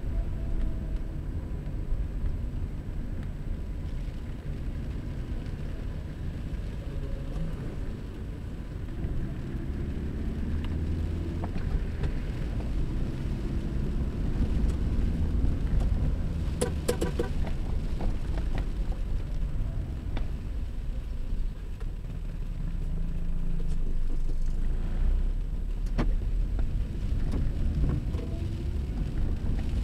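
Car engine and road noise heard from inside the cabin as the car drives on, the engine's pitch rising and falling as it speeds up and slows. A short cluster of clicks sounds about seventeen seconds in.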